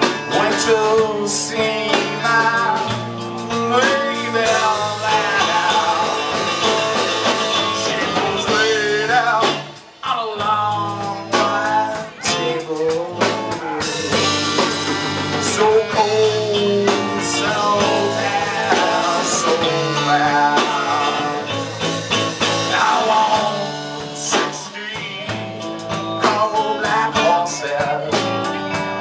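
Live band playing a blues-style number: saxophone and singing over electric guitar and a drum kit. The music drops out briefly about ten seconds in.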